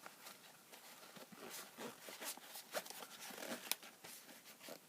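Faint rustling with scattered light clicks as a padded fabric EDC pouch is handled.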